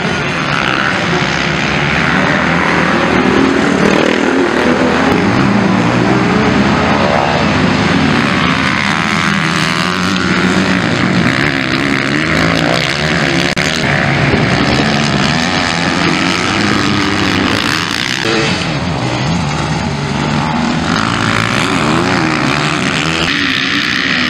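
Several motocross bikes' engines revving hard as riders accelerate through the track, their pitches rising and falling and overlapping.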